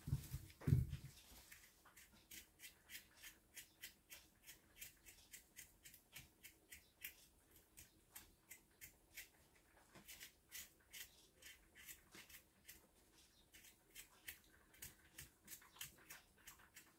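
Small kitchen knife scraping the skin off young potatoes: light, quick scraping strokes, a few a second, with a couple of soft knocks in the first second.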